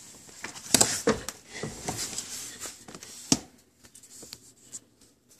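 Plastic clicks, knocks and rustling as the under-dash fuse box cover of a 2002 Honda Accord is unclipped and pulled off by hand, the sharpest knocks just under a second in and about three seconds in, then quieter handling.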